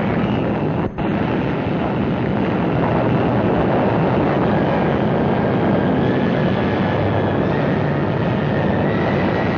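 Atomic bomb blast on a newsreel soundtrack: a loud, steady, dense rumble that runs on without a break apart from a short dip about a second in.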